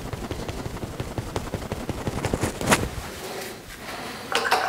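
Rapid, irregular light taps and scratches of a watercolour brush dabbing paint onto paper, easing off about three seconds in.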